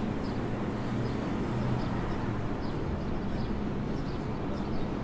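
Steady urban outdoor ambience: a continuous low hum and wash of city noise, with a few brief faint high-pitched chirps scattered through.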